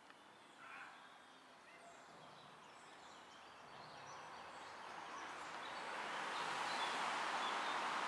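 Faint outdoor ambience with small birds chirping, overtaken from about halfway by a steady rushing noise that grows louder toward the end.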